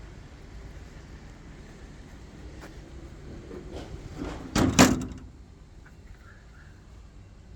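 A short, loud clatter of several sharp knocks about four and a half seconds in, over a low steady rumble.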